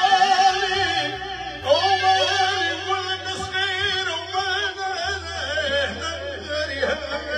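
Live Tunisian folk music: a man sings with a wavering, ornamented voice over long held notes and a steady low bass that shifts pitch twice.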